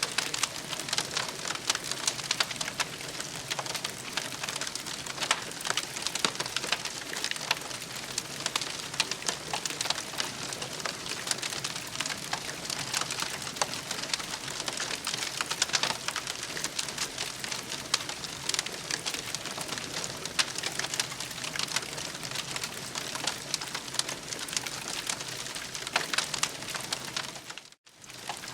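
Campfire crackling steadily: a dense run of small sharp pops and snaps over a soft hiss, cutting out for a moment near the end.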